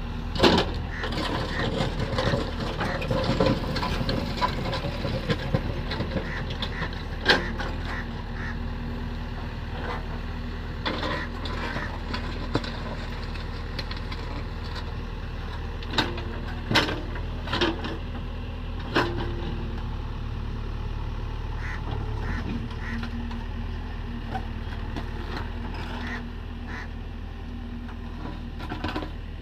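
JCB backhoe loader's diesel engine running steadily while the backhoe arm and bucket work the soil, with occasional sharp clanks and knocks, the loudest about half a second in and a cluster between 16 and 19 seconds in.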